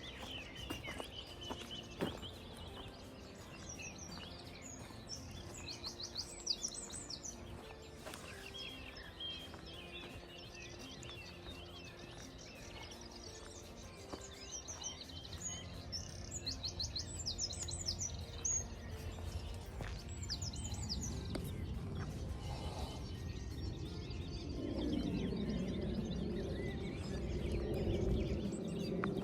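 Small songbirds singing: several runs of quick, high chirping phrases, with a held high whistled note at the start. A low rumble underneath grows louder near the end.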